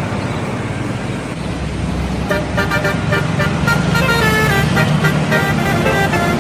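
Bus engine and road noise, the low rumble growing louder about one and a half seconds in, then a bus's telolet horn plays a quick tune of changing notes over it, going on to the end.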